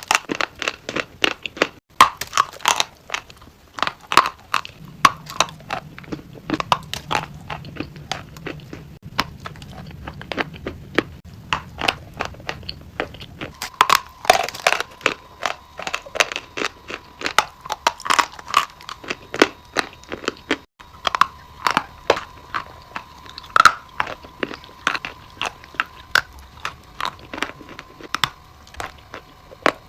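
Close-up crunching of something brittle being bitten and chewed: dense, irregular sharp crunches several times a second. A faint steady high tone sits underneath from about halfway through.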